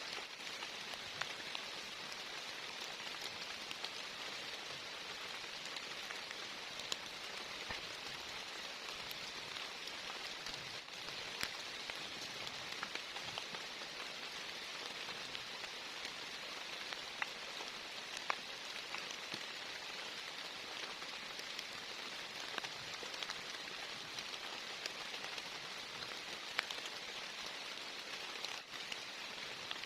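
Heavy rain falling steadily: an even hiss with scattered sharper ticks of single drops.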